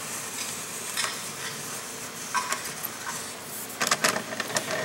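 A few light clicks and taps from a laptop keyboard being worked, sparse at first and then bunched together near the end, over a steady background hiss of room noise.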